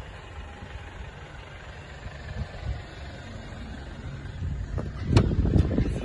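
Mercedes-Benz E200 CGI idling with a low, steady rumble. A little after five seconds a sharp click, the driver's door being opened, is followed by louder rumbling and handling noise.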